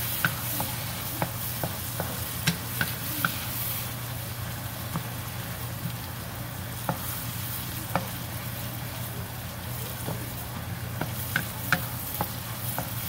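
Onion, tomato and dried shrimp sizzling in oil in a nonstick wok while a wooden spatula stirs them, with scattered light clicks of the spatula against the pan. A steady low hum sits underneath.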